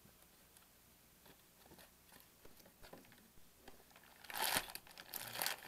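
Hands handling a cardboard mushroom grow-kit box: a few faint taps, then two short bursts of rustling and scraping about four and five seconds in.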